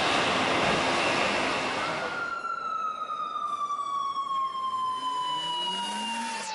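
A steady rushing noise that gives way, about two seconds in, to a single siren-like tone with overtones that slowly falls in pitch.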